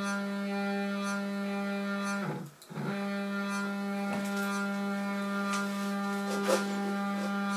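Stepper motors of a home-made CNC router driving an axis, a steady pitched whine that cuts out abruptly for about half a second some two and a half seconds in, then resumes at the same pitch. A single sharp click comes near the end.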